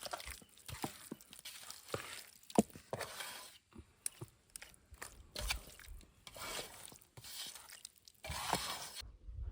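Food being handled and mixed with utensils: irregular rustling, scraping swishes and sharp clicks, with short pauses between them.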